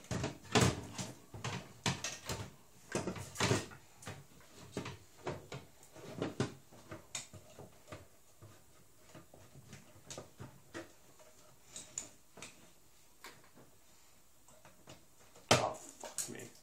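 Clicks and knocks of hands fitting an old IDE hard drive's data and power cables inside a desktop computer case: a dense run of knocks in the first few seconds, scattered small clicks after, and one loud knock near the end.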